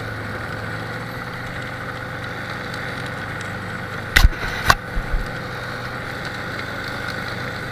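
ATV engine running steadily at low speed. A little past halfway there are two sharp knocks about half a second apart, then a couple of lighter thumps.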